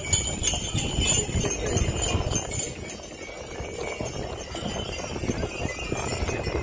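Harness bells on a horse jingling, with hoofbeats on dirt from the horse and cart going by. The jingling is louder in the first couple of seconds, then fades.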